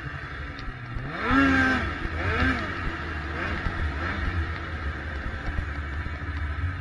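800 two-stroke snowmobile engine revving hard about a second in and dropping back, then a second, shorter rev and a few smaller throttle blips, over the steady low sound of the engine running.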